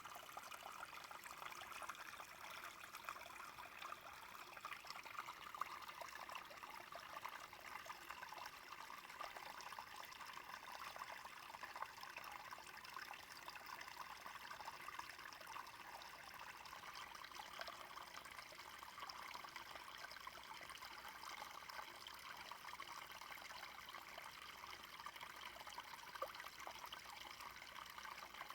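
Small brook flowing: a steady trickling, babbling run of water.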